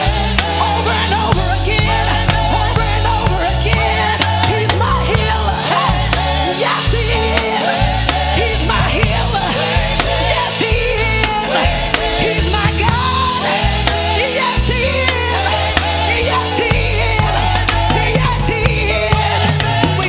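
A live worship band playing with drums and bass, a melody line and singing running over it.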